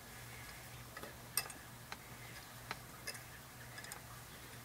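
Faint, irregular clicks, about six of them, as a wrench turns a homemade 3/4-10 steel tap, cut from a bolt, back out of a threaded hole in a wood block. A faint low hum runs underneath.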